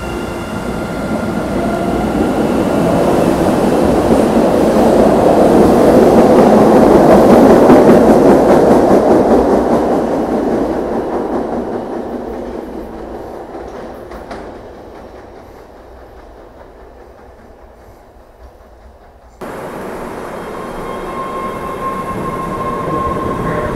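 A train running past on rails: its noise builds over several seconds to a peak and then fades away. About two-thirds of the way through, it cuts suddenly to a steadier train noise with a faint high whine.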